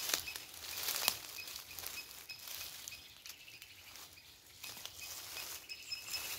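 Water splashing and trickling as a wet cast net is hauled in through the water by hand, with sharper splashes near the start, about a second in and again near the end. A high, evenly repeated chirping runs underneath.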